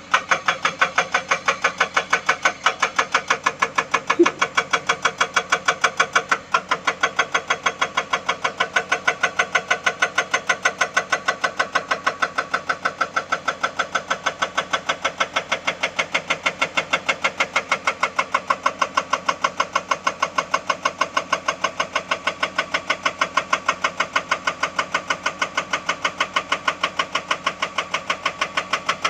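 Excavator-mounted hydraulic rock breaker hammering rock in a steady, rapid train of blows, about three a second, with the excavator's engine running under it.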